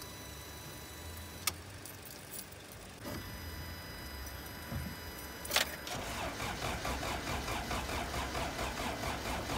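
A 1986 Toyota Corolla being cranked on its starter with its engine failing to catch. There is a sharp click about one and a half seconds in and another just before six seconds, then a steady rhythmic cranking churn through the rest.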